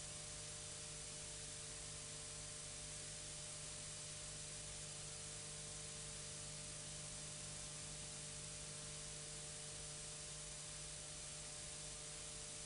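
Steady hiss with a low electrical hum underneath, the background noise of an old analogue video recording, with no music or voice.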